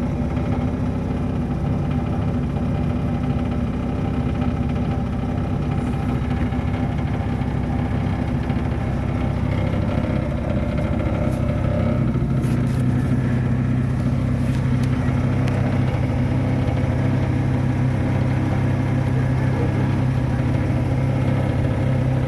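2004 Jeep Grand Cherokee WJ running at idle with a steady hum, and a low tone growing stronger about halfway through, alongside the rattle from the fuel tank area. The owner wonders whether the rattle comes from a bad fuel pump or a clogged fuel filter.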